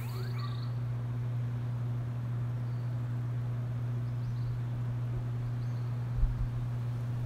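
A steady low hum, with a brief low thump about six seconds in.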